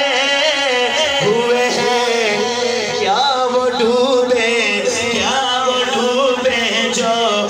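A man singing a naat into a microphone, amplified through the hall's loudspeakers, in long drawn-out phrases with held notes and quick wavering ornaments.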